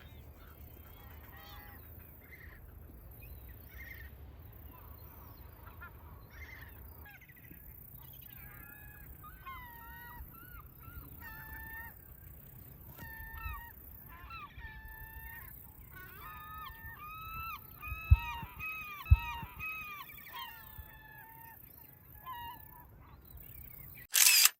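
A flock of wild birds calling, many short repeated calls overlapping and growing busier in the second half. Two sharp low thumps come about three quarters of the way through, and a brief loud burst cuts off at the very end.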